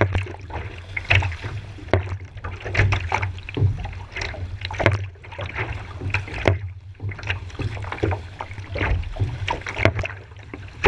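Sea kayak paddling through wind-driven chop: water splashing against the paddle and hull about once a second, over a steady low rumble.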